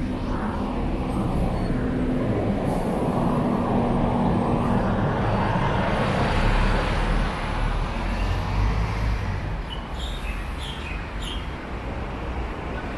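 City road traffic running past: engine rumble and tyre noise from passing cars and buses, swelling to a peak about six to seven seconds in and then easing off. A few short high chirps come around ten seconds in.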